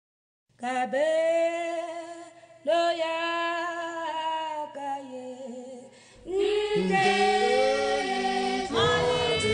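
Women's church choir singing in long held phrases, starting after a moment of silence. About six seconds in, more voices join, some of them lower, and the singing grows fuller and louder.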